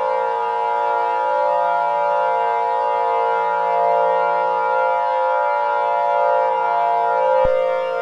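Emergency Alert System attention tone: a steady electronic chord of several held pitches that cuts off with a click near the end.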